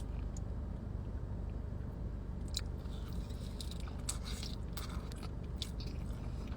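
Close-miked chewing of a mouthful of soft, sauce-covered fries, with scattered wet mouth clicks through the middle. A steady low hum runs underneath.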